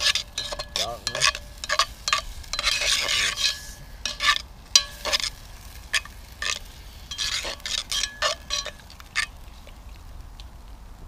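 Diced stewing meat sizzling as it browns in a cast iron Dutch oven, with a utensil scraping and knocking against the pot in repeated strokes as it is stirred.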